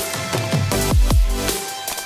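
Background electronic music with a heavy beat: deep bass hits that drop in pitch, falling about every half second over held synth tones.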